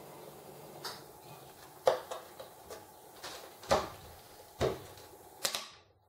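Small laser-cut plywood latch parts clicking and tapping together, and against the wooden tabletop, as they are pressed into place by hand. The sharp clicks come irregularly, about one a second.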